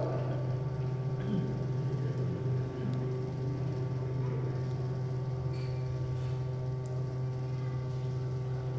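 A steady low hum under faint room tone, with a couple of faint ticks.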